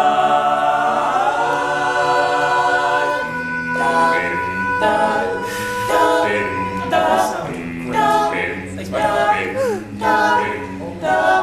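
Male a cappella group singing without instruments: a held chord for about three seconds, then short, rhythmic chords repeated as an accompaniment.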